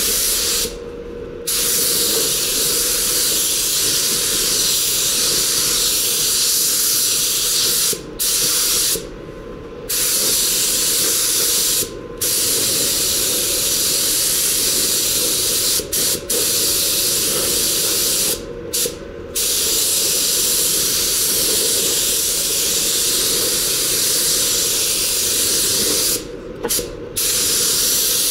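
Compressed-air paint spray gun hissing as dark blue paint is sprayed onto a car bumper. The hiss is cut by short pauses several times where the trigger is let off, and a steadier, quieter background noise carries on through them.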